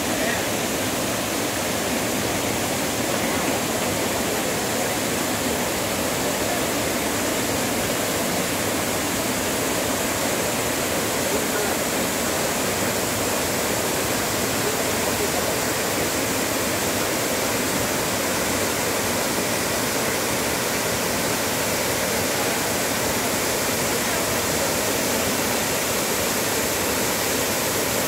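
Waterfall cascades pouring over a rock ledge into a pool: a steady, even rush of water.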